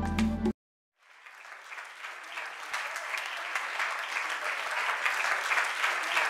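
Background music cuts off about half a second in; after a brief silence, applause fades in and keeps going.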